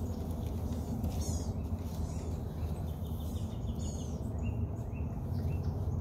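Songbirds calling over a steady low rumble of breeze. There are high chirps about a second in, a quick run of repeated notes around the middle, and a few short slurred calls near the end.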